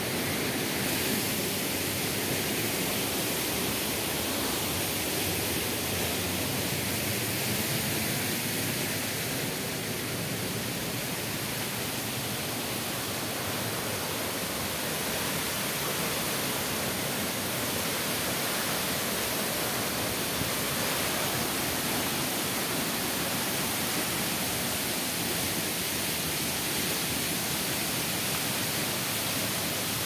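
Arvalem waterfall, a 50 m drop into a pool, rushing as one steady, unbroken wash of water noise.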